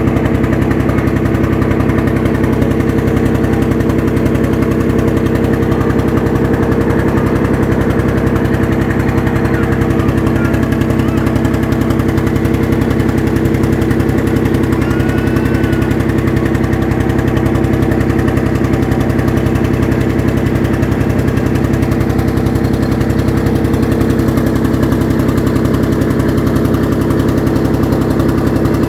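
Boat engine running steadily at constant throttle, with a fast, even pulsing beat.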